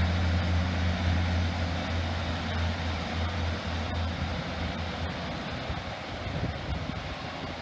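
Diesel multiple unit, an East Midlands Railway Class 158, pulling out of the station. Its engines give a steady low drone that fades after about four seconds as it moves away.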